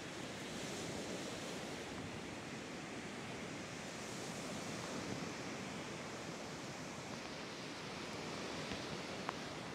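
Lake waves washing onto the shore in a steady rush, with a light breeze. A single sharp click comes near the end.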